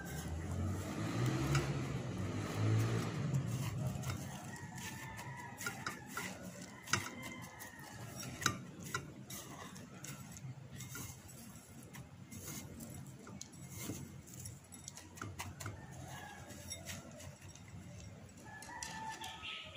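Hands pressing and turning an egg-coated slice of bread in a glass bowl of breadcrumbs: a dry rustling and crunching of crumbs, with light taps against the bowl and two sharp clicks in the middle.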